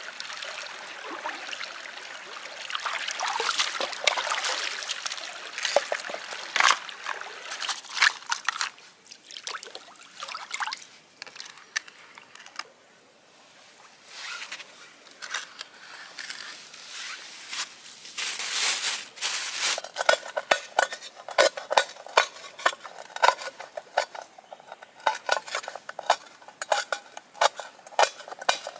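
Running, trickling water, then a steady run of quick metal clinks of cooking utensils on pots or dishes, about two to three a second, in the last third.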